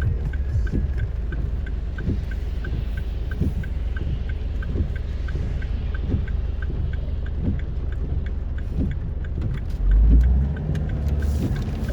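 Vehicle driving in heavy rain, heard from inside: a steady low road and engine rumble with scattered knocks, and a light tick repeating about two to three times a second. A louder low thump comes about ten seconds in.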